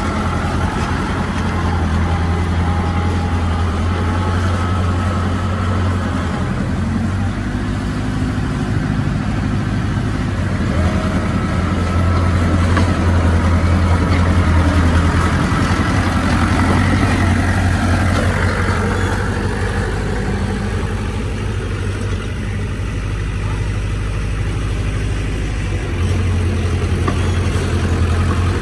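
Heavy diesel engine of earthmoving machinery running steadily under working load. Its level swells and eases a few times, and its pitch rises and falls briefly near the middle.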